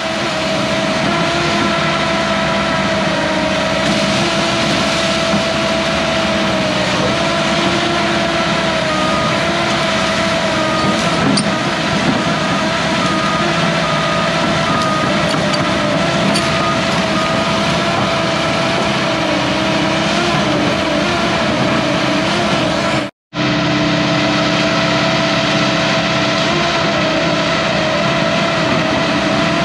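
Hyundai HX210AL excavator's diesel engine running steadily under work, with a steady pitched tone over the engine noise. The sound cuts out completely for a split second about two-thirds of the way through.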